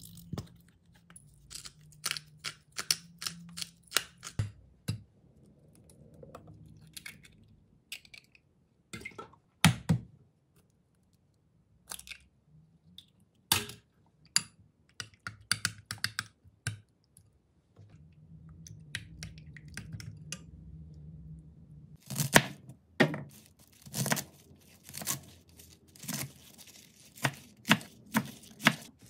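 Kitchen prep sounds: a metal spoon clinking and scraping in a bowl while sliced chicken is stirred with seasoning and eggs, with a few sharper knocks along the way. Near the end comes a quick run of knife strokes chopping leafy greens on a wooden cutting board.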